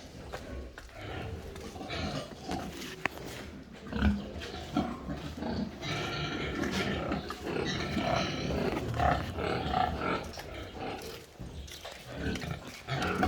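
Many pigs grunting and squealing at once, their calls overlapping, busiest in the middle stretch.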